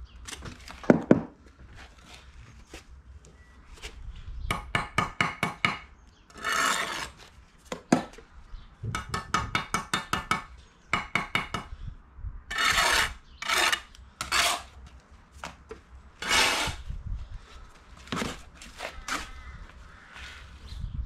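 Steel brick trowel scraping mortar along the top of a brick course and striking the bricks: short rasping strokes, quick runs of clicks and a few sharp knocks.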